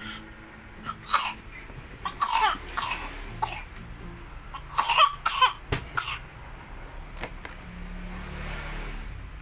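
A small child coughing in several short bouts, the loudest about five seconds in: the child is sick with a cough and cold.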